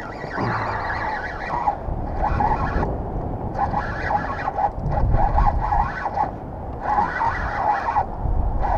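Spinning reel being cranked in spells of a second or so, a rasping whir, as a hooked fish is reeled in on a hard-bent rod. A low rumble of wind on the microphone runs underneath.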